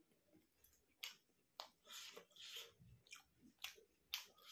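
Close-miked mouth sounds of a person chewing steamed vegetable momo: faint wet smacks and sharp clicks, several a second.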